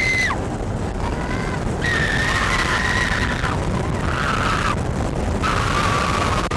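Millennium Force steel roller coaster train running along its track: a steady rumble and rush of wind, with riders letting out several long, held screams.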